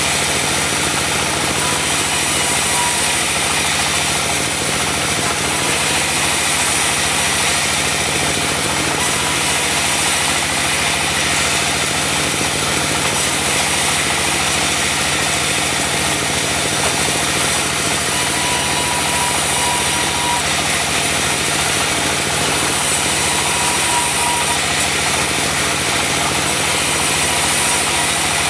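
Diesel engine of a mobile band sawmill running steadily, with the band saw's high hiss swelling and fading every few seconds.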